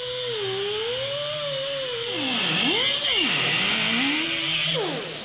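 Pneumatic cutoff wheel (a "muffler cutter") slicing through the steel quarter panel: a whine that wavers in pitch and sags sharply twice in the middle as the wheel is pressed into the metal, over a cutting hiss that stops shortly before the end.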